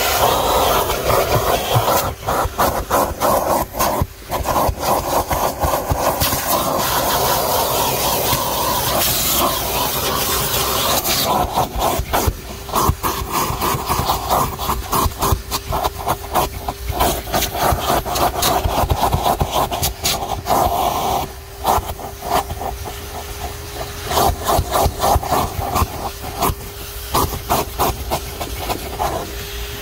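Canister vacuum running with a steady hiss and motor tone, its plastic crevice nozzle scraping and rubbing back and forth over car floor carpet in rapid strokes.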